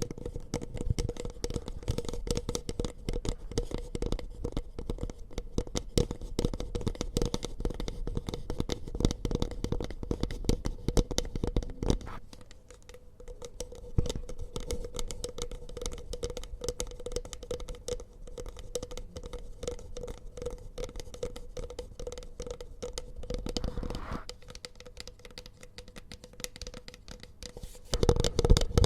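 Close-miked ASMR tapping and scratching: a rapid, dense run of light clicks and scrapes, growing quieter and thinner about halfway through.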